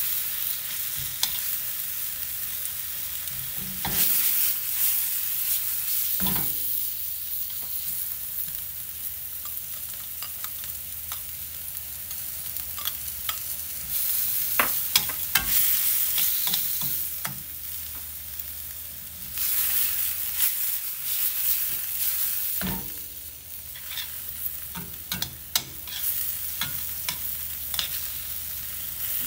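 Sliced beef and onions sizzling in a stainless steel skillet while metal tongs toss them, clicking and scraping against the pan. The sizzle swells louder several times as the meat is turned.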